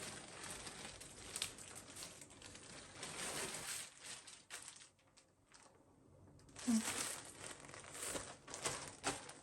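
Plastic packaging crinkling and rustling as a parcel is opened and a garment is pulled out, with a brief lull about halfway through.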